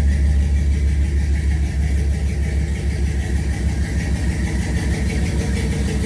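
A 6.0-litre LS V8 in a 1971 Nova idling steadily, with a deep, choppy exhaust rumble.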